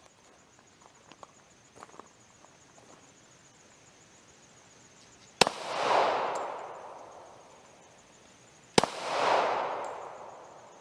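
Two pistol shots from a Glock 22 in .40 S&W, about three and a half seconds apart. Each sharp crack is followed by a long echo that fades over about two seconds.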